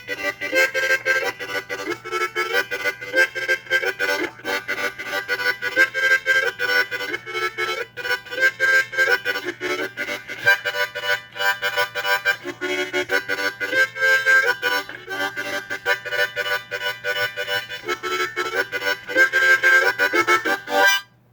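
Background music: a lively tune of quick, short repeated notes that starts and stops abruptly.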